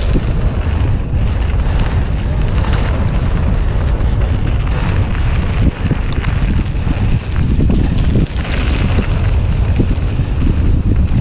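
Wind buffeting the microphone of a camera riding along on a mountain bike descending fast, with a steady low rumble and scattered clatter from the bike on rough trail.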